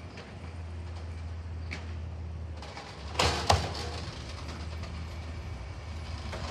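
Amrep Octo automated side-loader garbage truck emptying a wheeled trash cart, its engine and hydraulics running in a steady low hum. Two loud bangs come a little after three seconds in, as the cart is shaken out at the top of the lift before the arm lowers it.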